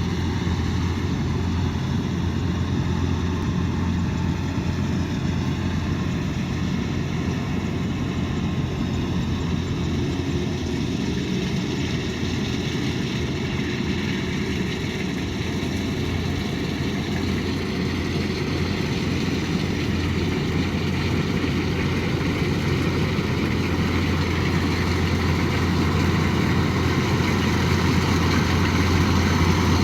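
Kubota DC108X combine harvester running steadily: a low diesel hum with several steady whining tones above it, growing slightly louder over the last several seconds.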